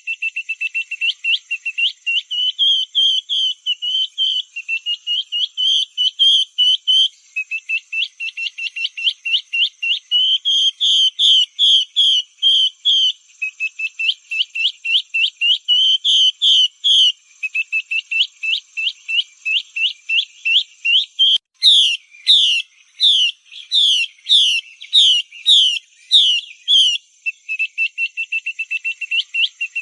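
Female Chinese hwamei calling, played as a lure call: fast runs of short, rising whistled notes, several a second, in phrases of a few seconds with brief gaps. The notes are louder and more widely spaced for a few seconds from about 22 s. A faint steady high whine runs underneath.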